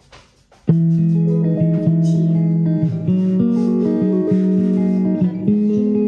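Background music led by plucked guitar, starting suddenly under a second in and then running at a steady level.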